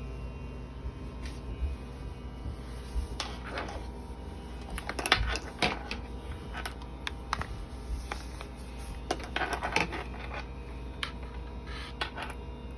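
Irregular sharp clicks and taps of equipment being handled, over a steady low hum.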